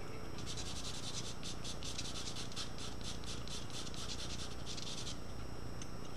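Charcoal pencil hatching on drawing paper: quick short scratchy strokes, about four or five a second, stopping about a second before the end.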